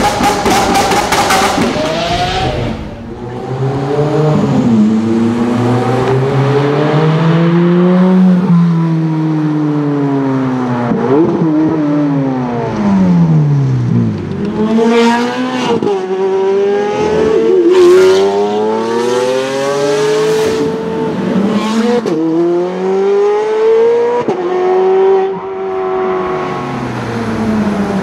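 Ferrari 430 Scuderia's V8 revving hard and accelerating as it drives past, its pitch climbing and falling again and again. There are several sharp cracks in the middle.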